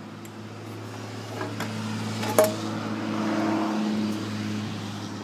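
A motor vehicle engine running steadily, swelling louder for a couple of seconds midway, with one sharp click about two and a half seconds in.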